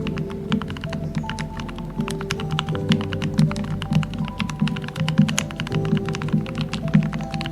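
Continuous fast typing on a modded Royal Kludge RK68 mechanical keyboard: a quick, uneven stream of deep, thocky keystrokes, several a second. Soft background music with held notes plays underneath.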